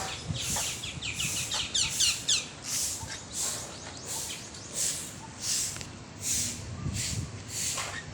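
Birds chirping: a quick run of short falling chirps in the first couple of seconds, then a high, hissy call repeating about every three-quarters of a second.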